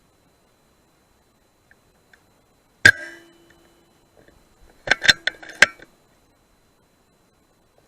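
A single sharp metallic clank that rings briefly, then about two seconds later a quick run of four or five metallic clicks and knocks.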